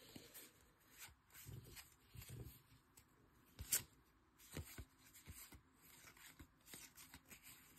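Faint rustling and light clicks of a stack of baseball trading cards being handled and slid one past another, with one sharper click a little under four seconds in.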